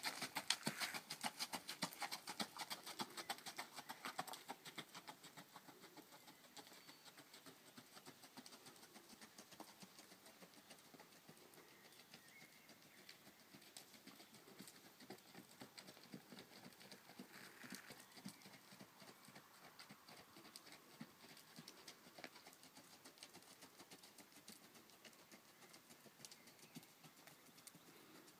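Hoofbeats of a ridden Icelandic horse moving fast along a dirt track, a quick, even patter of hooves. They are loudest in the first four seconds as the horse passes close, then grow faint as it moves away.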